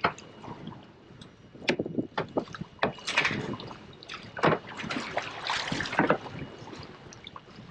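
Water slapping and sloshing against the side of a small boat's hull, in irregular splashes, with sharp knocks on the boat.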